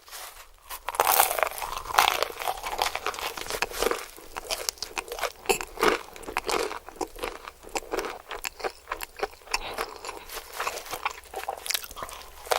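Biting into and chewing crispy KFC fried chicken: loud crunches begin about a second in and continue as a dense, crackly run of crunching chews.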